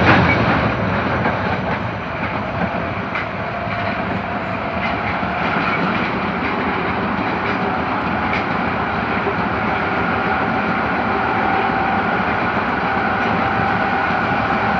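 Tanimachi Line 22 series subway train running: a steady rush of wheel and track noise with a faint whine that comes in a few seconds in and climbs slowly in pitch.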